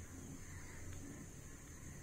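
Faint room tone: a low steady hum and hiss, with no distinct event.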